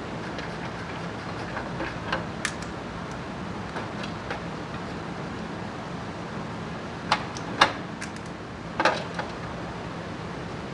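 A few sharp clinks and knocks from tools and parts being handled during front shock absorber work: two light ones about two seconds in, two louder ones about seven seconds in, and a short cluster near nine seconds. A steady low hum runs underneath.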